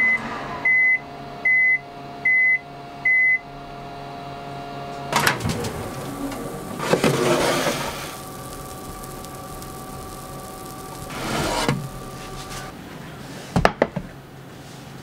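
Panasonic Bistro oven-range sounding five short, evenly spaced beeps, the signal that its grill cycle has finished, over the hum of its fan. About five seconds in its door clicks open, and the metal grill plate is drawn out with rustling and rattling, ending in a few sharp clicks.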